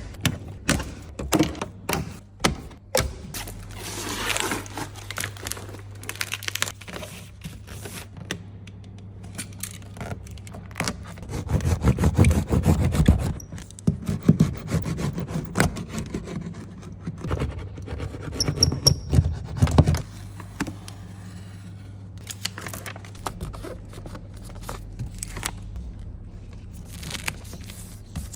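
Irregular clicks, knocks and scrapes with stretches of rustling and tearing, the sounds of hands working on car panels and sound-deadening material, over a steady low hum.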